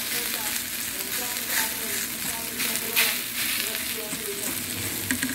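Cooked rice and garlic sizzling in a hot frying pan while being stirred and scraped with a plastic rice paddle: a steady hiss with short scrapes, the loudest about three seconds in.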